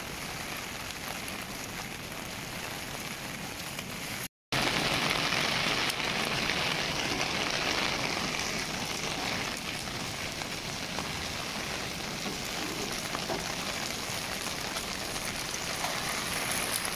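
Steady rain falling, an even hiss. About four seconds in there is a split-second gap in the sound, after which the rain is a little louder.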